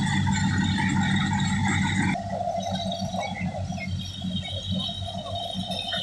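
Wheat thresher running steadily while sheaves are fed into it, a continuous mechanical hum and rattle; the sound shifts abruptly about two seconds in.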